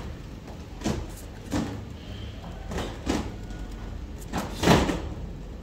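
Scissors cutting through folded black craft paper: a series of short, irregular snips about a second apart, the loudest near the end.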